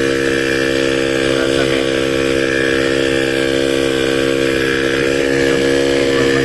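Royal Enfield Diesel Bullet's single-cylinder diesel engine idling steadily after a rebuild, firing evenly, with its injector timing freshly set.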